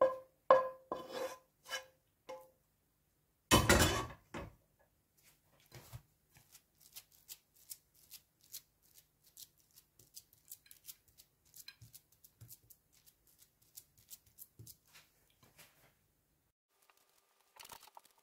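Kitchen utensil working against a pan and plate: a few sharp ringing taps at the start, a loud scrape about three and a half seconds in as the sweet couscous mixture is scraped out of the pan, then many light clicks and pats as it is spread and pressed flat on the plate.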